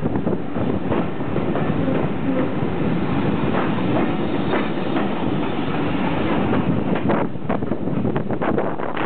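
Passenger train carriage running slowly over jointed track and pointwork, heard from an open window: a steady rumble with wheels clicking over rail joints. The clicks come thicker near the end.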